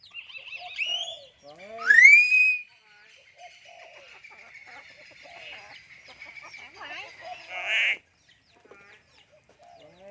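Myna birds calling: a run of short whistles and chattering notes, with a loud rising whistle about two seconds in and a louder harsh burst near the end, after which the calling stops.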